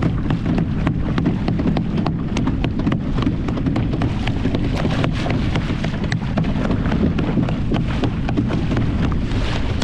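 Small boat under way: a steady low rumble of motor and wind, with water splashing and slapping at the hull in quick irregular ticks.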